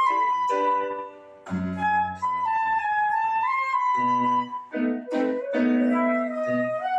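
Flute playing a melody in held notes over a piano accompaniment with chords that change every second or two.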